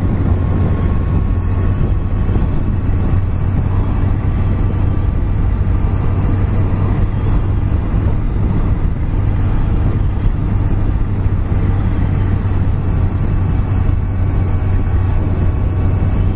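Honda CBR1100XX Super Blackbird's inline-four engine running steadily while riding, under a steady rush of wind noise on the bike-mounted microphone.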